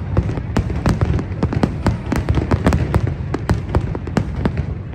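Fireworks display: a rapid, irregular string of sharp bangs and crackling reports, several a second, over a steady low rumble of booms.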